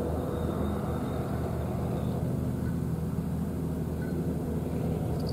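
Steady low engine hum, like a motor vehicle running at a distance, even in level and pitch throughout.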